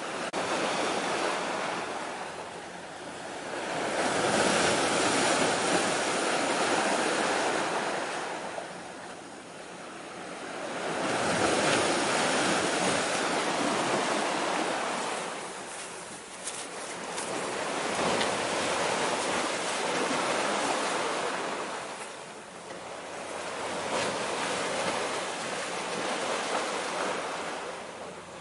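Sea waves washing in against the shoreline rocks and concrete blocks, swelling and falling back about every five to seven seconds.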